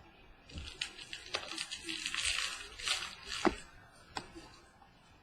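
Trading cards being handled and slid against one another: an intermittent crinkly rustle with a few sharp clicks and snaps.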